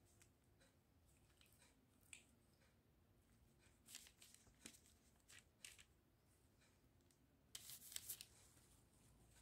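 Faint crinkling of plastic food-prep gloves and baking parchment as chicken wings are set down on a lined tray: a few short, separate rustles, then a quick cluster of them near the end.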